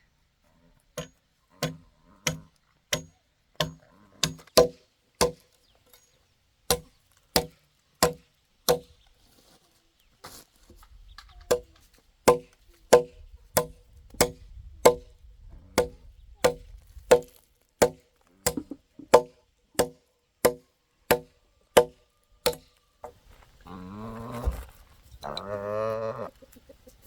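Steady hand chopping into wood with a blade: about thirty sharp strikes, roughly one every two-thirds of a second, with a brief pause near the middle. Near the end a drawn-out, wavering call rises over the chopping for a few seconds.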